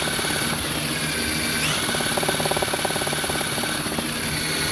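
Electric drill running steadily, spinning a fabricated crank pulley past a Cummins crankshaft sensor. A fast, even rattle comes in for about a second near the middle.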